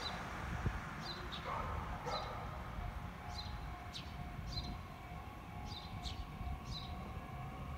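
Trackside ambience: birds chirping over and over in short high calls, a dog barking twice in the first two seconds, and a faint steady tone coming in about two and a half seconds in.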